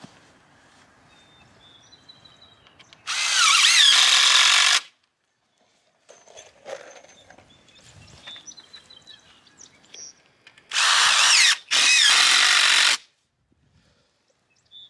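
Cordless drill driving wood screws to fasten beech-whip rails to white ash poles. It runs in three spurts: one of a second and a half about three seconds in, then two more in quick succession near the end.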